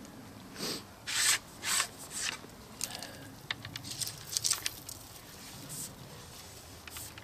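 Ramrod sliding and scraping in the barrel of a flintlock longrifle during loading: four quick strokes about half a second apart, then lighter clicks and rubbing as the rod is drawn back up.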